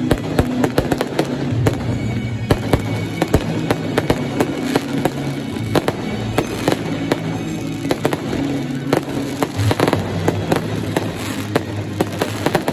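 Fireworks display: aerial shells bursting in a rapid, irregular barrage of bangs and crackles, several a second, with no let-up.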